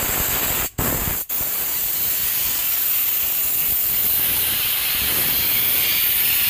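Steam gun of a mobile steam car-wash unit hissing steadily as it jets steam onto leather car seats, cutting out twice for a moment about a second in.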